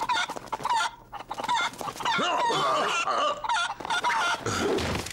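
A chicken clucking and squawking in a rapid run of short calls that stops near the end.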